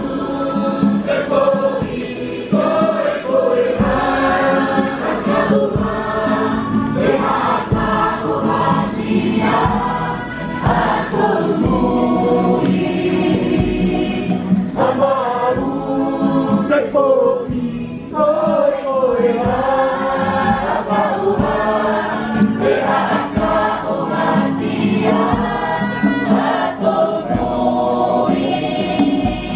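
Polynesian choir singing together, with a steady beat under the voices.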